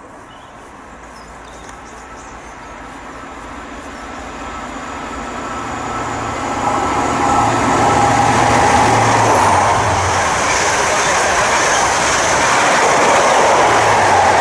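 Great Western Railway Class 43 HST (InterCity 125) approaching and passing: the rumble of the diesel power car and wheels on the rails builds steadily for about seven seconds, then stays loud with a low engine drone.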